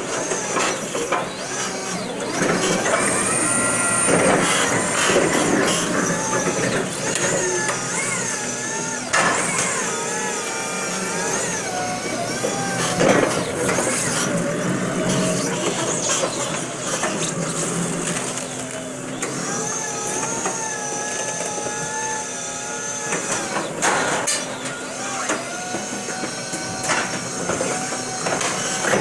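Crown stand-up electric reach truck at work: its electric motors and hydraulic pump whine, rising and falling in pitch over stretches of a few seconds as the mast lifts and lowers a pallet. Scattered clunks and rattles from the mast and forks.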